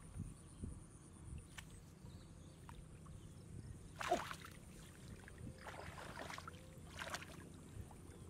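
Hands sloshing and splashing in shallow, muddy flooded-field water while groping for frogs, with one sharp splash about four seconds in and a few smaller splashes after it.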